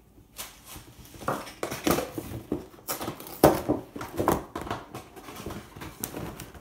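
Cardboard and clear plastic window packaging of a Breyer model horse box being handled and opened by hand: irregular crinkles, rustles and scrapes, busier after the first second or so.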